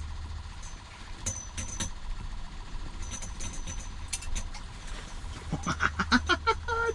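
Ice-fishing reel being cranked to bring in a hooked fish: light clicks and ticks in short runs, over a steady low hum.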